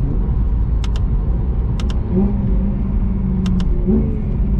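BMW E92 M3's V8 running at gentle, low revs while still warming up, heard from inside the cabin over a deep rumble. The engine note glides up briefly about two seconds in and again near the end, then holds steady; a few light double clicks sound over it.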